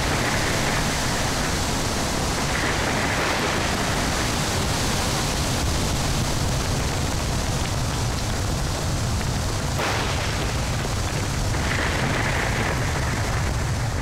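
Whirlwind or storm-wind sound effect: a loud, steady rush of noise with no pitch, holding even throughout.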